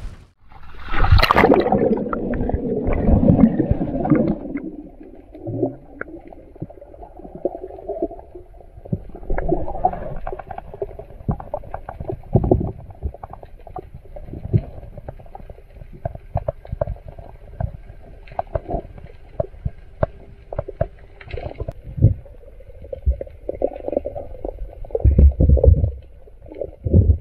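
Muffled underwater sound around a diver: bubbles gurgling, with many scattered clicks and knocks and a faint steady hum. A loud rush of water fills the first few seconds.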